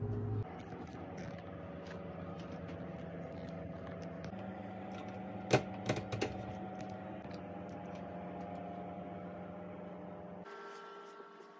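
Door knob being turned and a door latch clicking, three sharp clicks close together about halfway through, with small handling clicks around them over a steady hum.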